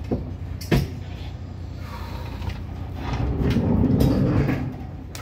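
Hollow knocks and a low booming rumble from the floor and walls of an empty semi-trailer as a person climbs up into it. Two sharp knocks come near the start, and the louder rumble builds about three seconds in and fades out near the end, over a steady low hum.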